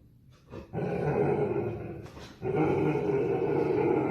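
Dog growling: two long, rough growls of about a second and a half each, with a short break between them.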